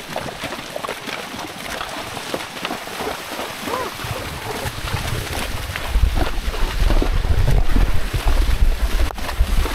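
Wind buffeting the microphone: a steady rushing noise that turns into heavy low rumbling about six seconds in and eases just before the end.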